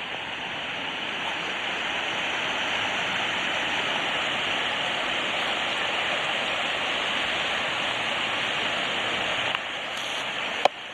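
Waterfall rushing as a steady, even wash of water noise. It dips slightly in level a little before the end, followed by a single sharp click.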